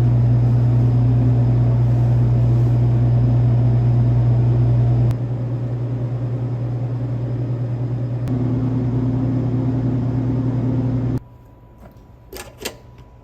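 Loud, steady low machine hum that drops in level about five seconds in and stops abruptly near the end, leaving a quiet background with a few faint ticks.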